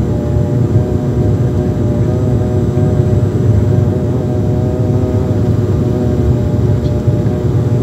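Steady drone of a twin-turboprop airliner's engines and propellers inside the passenger cabin: a loud low hum with several held tones and no change in pitch.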